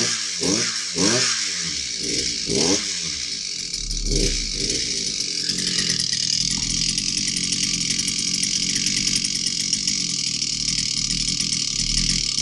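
Shark earth/ice auger's small gasoline engine running after repair, revved up and down in about five quick blips over the first few seconds, one more a little later, then held at a steady speed. It is running well: 'sounds wonderful'.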